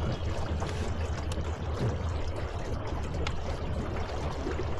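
Small fishing boat under way: water rushing and splashing steadily along the hull over a constant low rumble.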